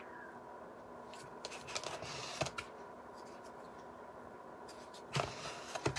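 Soft scrapes and taps of thick white craft paste being scooped out of a plastic tub, in two short clusters, one about a second or two in and another near the end, over a faint steady hum.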